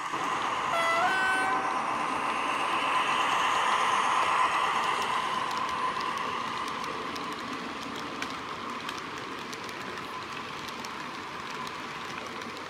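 HO-scale BB 67400 diesel model's ESU LokSound V5 sound decoder sounding a short two-tone horn about a second in, a lower note stepping up to a higher one, over the running noise of the locomotive and its tank wagons rolling on the track. The running noise gets quieter after the first few seconds as the train moves away.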